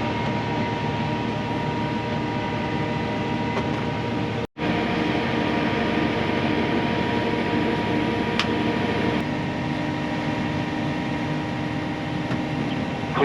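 Combine harvester running steadily, its engine hum and cab fan heard from inside the cab. The sound cuts out for an instant about four and a half seconds in.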